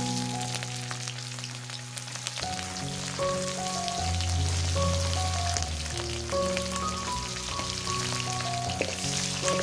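Food sizzling and crackling in hot oil in a pan, a steady frying hiss with many small pops, under background music with a melody and a bass line that comes in about two seconds in.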